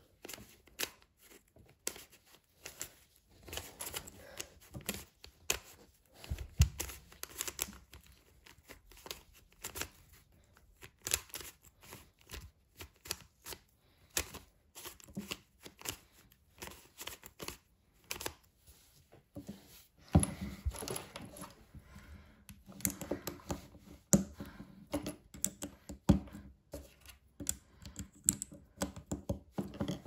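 Plastic clicking and clattering of a Lego-brick Rubik's cube being twisted by hand, its layers turning in quick irregular clicks, busier and louder in the last third.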